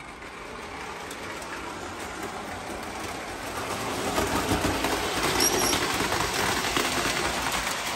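O gauge model train running along three-rail track, growing louder as it comes close past about four seconds in, with a brief high squeak near the middle.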